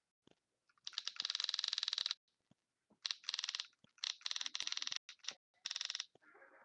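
Invert Mini electronic paintball marker firing on full auto, giving four bursts of very rapid, evenly spaced clicks, each about half a second to a second long, with short pauses between.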